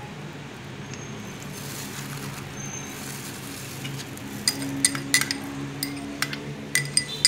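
Fish sauce poured from a small ceramic bowl over minced pork and shrimp in a stainless-steel mixing bowl. In the second half the ceramic bowl clinks against the steel bowl several times in quick, light clicks. A low steady hum runs underneath.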